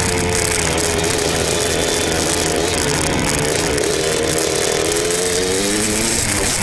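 Yamaha YZ two-stroke dirt bike engine running hard under a rider, its pitch rising and falling with the throttle.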